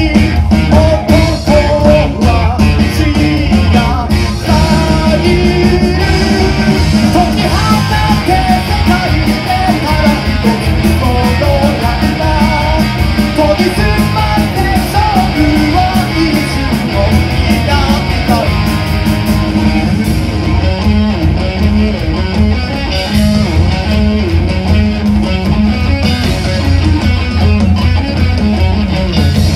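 Live rock band playing loudly: a singer over electric guitars with a heavy low end. The singing fades out about two-thirds of the way through, leaving a stretch that is mostly instrumental.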